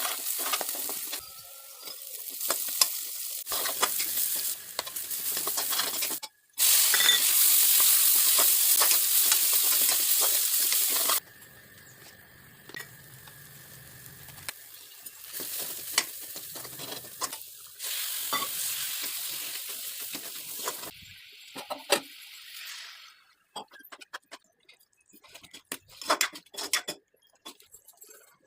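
Chicken sizzling as it fries in hot oil, with a utensil clicking and scraping as it is stirred. The sizzle jumps abruptly louder and softer, is loudest a few seconds in, then dies away to scattered clicks of the utensil near the end.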